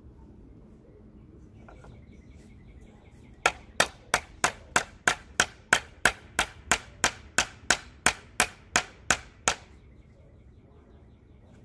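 Hammer driving a nail into a wooden raised-bed board: about twenty sharp, steady blows, roughly three a second, which begin a few seconds in and stop near the end.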